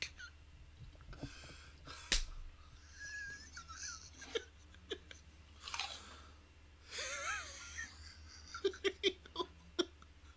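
A man's wheezing, breathy laughter, squeaking in a couple of high, wavering squeals. Near the end come a quick run of crunching clicks, like potato chips being chewed.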